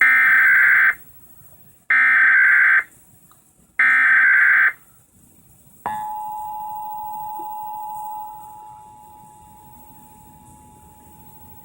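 Emergency Alert System test signal. First come three one-second bursts of the SAME header's digital data tones, about a second apart. About six seconds in, the steady two-tone attention signal (853 and 960 Hz) starts, and it drops in volume about two seconds later.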